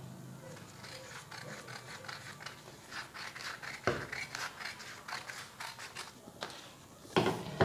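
Scissors snipping through paper along a marked line: a quick, uneven run of short cuts. A louder rustle of paper comes near the end.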